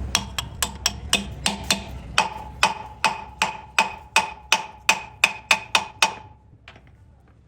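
Hammer striking steel in a steady run of about three blows a second, each blow ringing. The blows stop about six seconds in.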